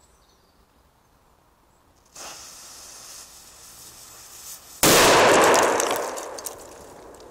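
A burning fuse hisses for about two and a half seconds, then about 7.5 g of TATP packed in a film canister detonates: one sharp, very loud blast whose echo rolls through the forest and fades over about two seconds.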